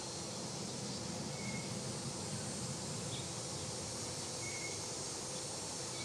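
Steady high-pitched drone of an outdoor insect chorus over a low rumble, with a few brief faint chirps.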